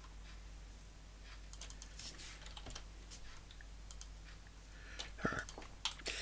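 Faint computer keyboard typing and mouse clicks: scattered, irregular clicks, a few louder ones near the end, over a low steady hum.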